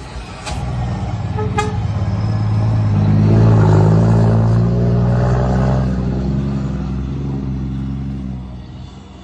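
Scania heavy-vehicle diesel engine rumbling, building up to its loudest about three to four seconds in and then dying away. Two short sharp clicks near the start.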